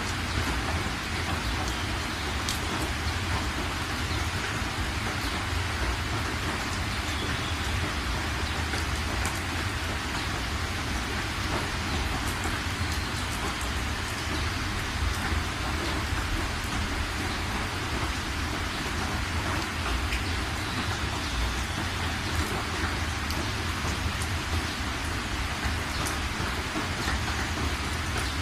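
Heavy rain pelting a moving car's windscreen and roof, heard from inside the cabin, over a steady low rumble, with scattered sharp drop strikes.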